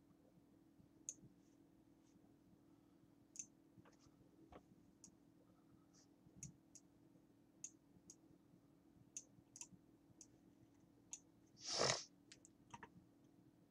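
Computer mouse clicking now and then: about a dozen sharp clicks at irregular intervals over a faint steady hum. One short, louder rush of noise comes near the end.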